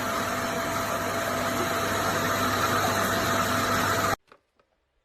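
Karcher VC 3 bagless vacuum cleaner running: a steady rush of air with a constant motor whine, stopping abruptly about four seconds in.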